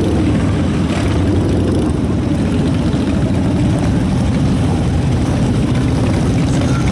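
Many motorcycle and vehicle engines running together at low speed, a steady dense engine sound with no single machine standing out.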